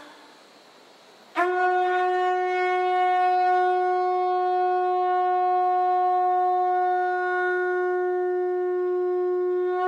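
Conch shell trumpet blown in one long, steady note that starts about a second and a half in with a slight scoop up in pitch and is held to the end.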